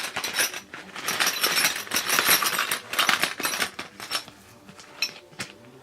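Allen keys clicking and rattling in their holder as the biggest hex key is worked out of the set: a dense run of clicks and scraping for about four seconds, then a couple of single clicks near the end.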